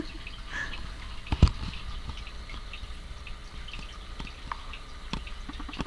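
A sleeping cat snoring, the breaths full of small crackling clicks over a low rumble, with a single thump about one and a half seconds in.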